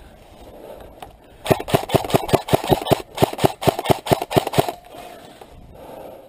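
Airsoft gun firing a quick, regular string of about twenty shots, roughly six a second, for about three seconds starting a second and a half in.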